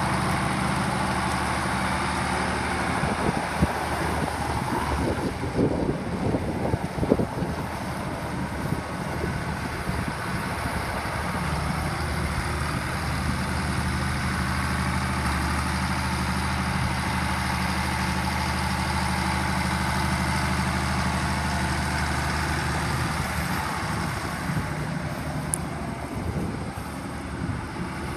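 Case 2090 tractor's six-cylinder diesel engine running steadily as the tractor drives slowly across gravel. Irregular crackling and knocks come through about three to eight seconds in.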